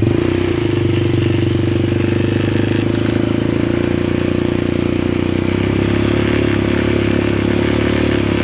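ATV engine running at a steady speed, a constant low engine note without revving.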